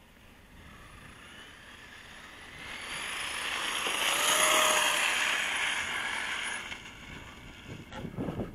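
Brushless electric motor whine and tyre hiss of a Traxxas E-Revo RC truck running on 6-cell LiPo over gritty pavement. It builds as the truck comes close, is loudest about four seconds in, then fades as it moves away.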